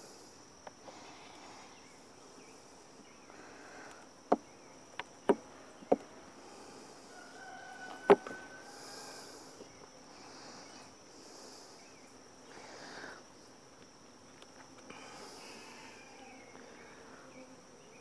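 Honey bees buzzing around an opened wooden hive, with a steady high insect whine behind them. A metal hive tool pries the wooden frames loose from their propolis seal, giving five sharp cracks and clicks between about four and eight seconds in, the last the loudest.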